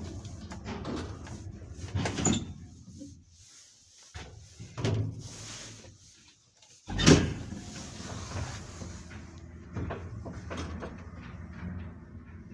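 1961 ZREMB passenger lift setting off after a floor button is pressed: a few mechanical clunks, then a loud clunk about seven seconds in, after which the car runs with a steady low hum and light knocks and rattles.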